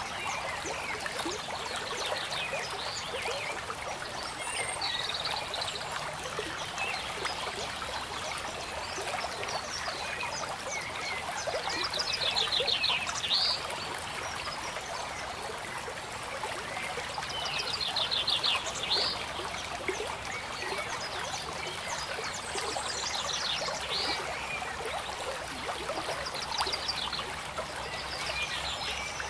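Steady running-stream water sound with short, high, rapid chirping trills every few seconds, the loudest about halfway through and again a few seconds later.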